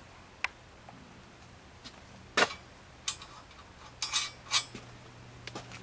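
Metal hardware being handled: about half a dozen short, sharp clinks and knocks of bolts, nuts and steel rack parts, the loudest about two and a half seconds in.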